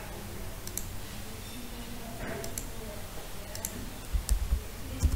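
Computer mouse clicking several times, some clicks in quick pairs, over a steady low hum. A few dull low thumps come near the end.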